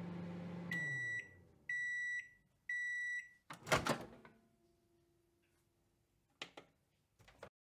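Microwave oven stopping at the end of its timer: its low running hum winds down, then three high end-of-cycle beeps sound a second apart. A sharp clunk follows, the loudest sound, as the door pops open, and two short clicks come near the end.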